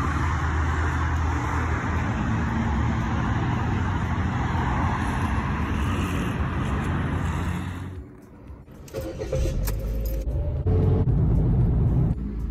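Ordinary city road traffic: a steady noise of passing cars' tyres and engines, which cuts off about eight seconds in. It is followed by a lower rumble of road and engine noise heard from inside a moving car.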